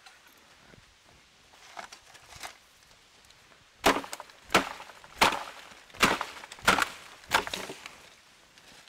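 Bamboo being chopped with a blade: six sharp strikes, about one every 0.7 seconds, beginning a little before halfway, with two fainter knocks before them.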